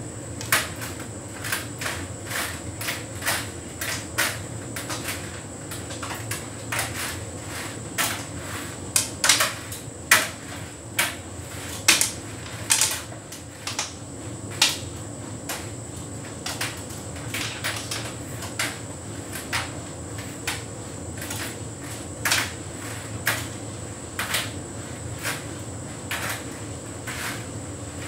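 Hotpoint heat pump tumble dryer running a synthetics cycle: a steady hum under irregular sharp knocks, about one or two a second, as the load tumbles in the drum.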